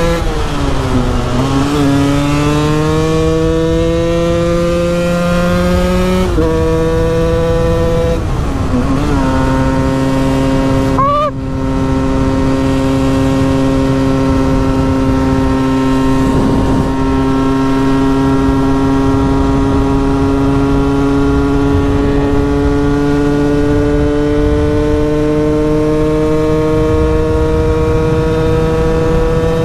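KTM EXC 125 two-stroke single-cylinder engine under hard acceleration. Its pitch climbs and then drops sharply at each upshift, near the start, about six seconds in and about eight and a half seconds in, with a brief throttle cut about eleven seconds in. It then holds a high, steady note that slowly creeps upward at speed, over a constant rush of wind.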